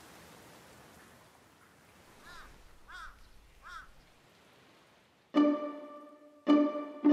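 Ambient noise fading out, then three faint crow caws about two-thirds of a second apart. About five seconds in, soundtrack music begins: single notes, each struck sharply and dying away, about one a second.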